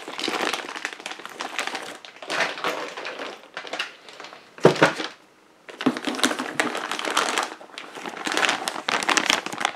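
Clear plastic parts bags crinkling and rustling in irregular bursts as they are handled and shifted in a cardboard box, with one sharp knock a little before halfway and a brief lull just after it.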